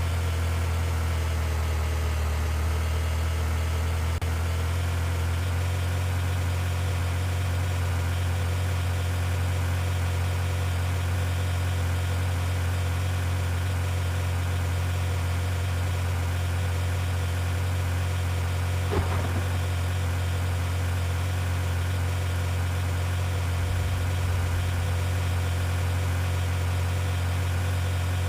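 Car engine idling steadily with a constant low hum. There is a single brief click about nineteen seconds in.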